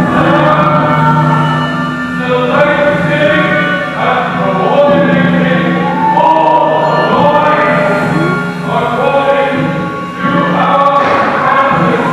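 Choir of many voices singing, a held low note underneath while upper voices slide and shift between pitches.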